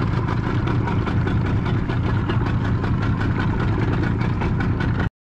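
Boat engine running steadily at low trolling speed, a continuous low hum with a fast even pulse. It cuts off abruptly near the end.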